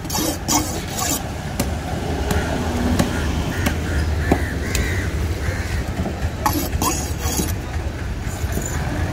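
Heavy cleaver chopping and cutting through a yellowfin tuna on a wooden table: scattered sharp knocks and short scraping cuts, with a busier stretch near the start and another about six and a half seconds in. A steady rumble of road traffic runs underneath.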